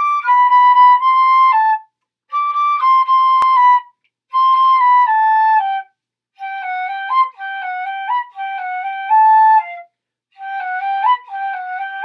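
Intro music: a solo flute playing a simple melody in short phrases with brief pauses between them.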